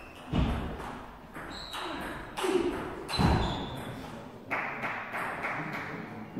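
Footfalls and short squeaks of shoes on a wooden sports-hall floor, with two heavy thuds, one about half a second in and one about three seconds in, echoing in the hall.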